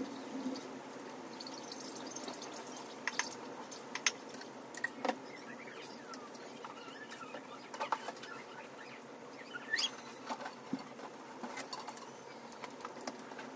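Small clicks, taps and scratchy squeaks of heat-transfer vinyl being weeded off its carrier sheet with a pointed weeding tool, scattered irregularly over a steady low background hum.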